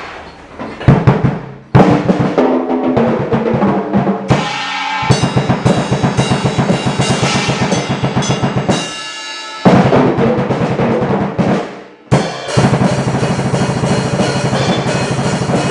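A drum kit being played: fast runs of kick drum and snare strokes with cymbals ringing over them, stopping for brief moments a few times between passages.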